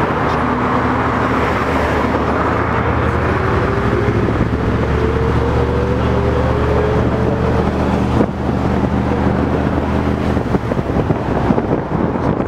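LiAZ-677M bus's V8 petrol engine and transmission running under way, heard from inside the cabin over road noise. A whine rises slowly in pitch through the first half as the bus gathers speed, with a short dip a little after eight seconds.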